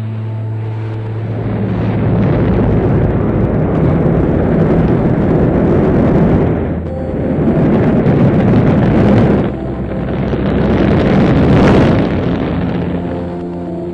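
Rocket engines at liftoff, as a sound effect: a loud, dense rumble that builds, dips twice and swells again, loudest near the end before easing off. Sustained musical notes sit under it at the start and return near the end.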